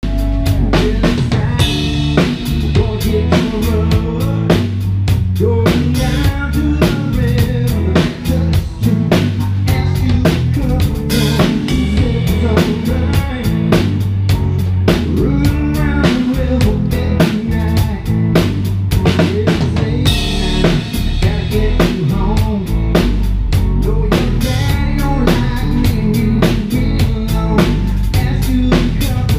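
Live band playing, heard from on the stage: a loud drum kit keeps a steady beat of bass drum and snare under guitars.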